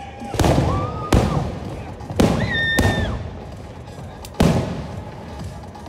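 Fireworks going off: about five booms and cracks within the first few seconds, then a pause before one more bang near the end.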